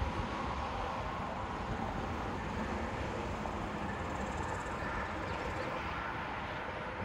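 Wind rumbling on the microphone over a steady outdoor background hum.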